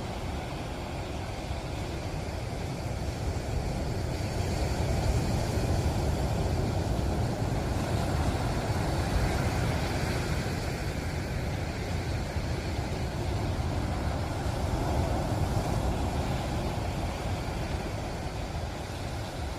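Ocean surf washing onto the shore, a steady hiss that swells and eases as waves come in, over a low rumble of wind on the microphone.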